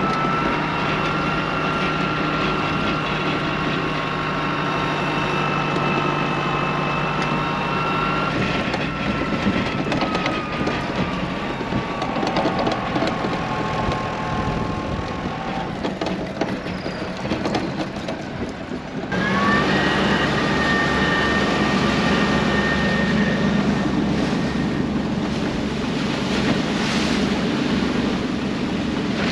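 Tractor engine running steadily as it tows the boat on its trailer across the sand, its note slowly dropping in pitch. About two-thirds of the way through, the sound cuts abruptly to a different engine note with a short rising whine: the boat's outboard motor running as the boat heads out through the shallow surf.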